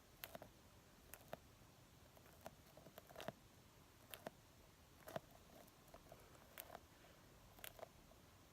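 Faint, soft sticky clicks and light crackles from a squishy toy being squeezed and handled. About a dozen short clicks come at irregular spacing.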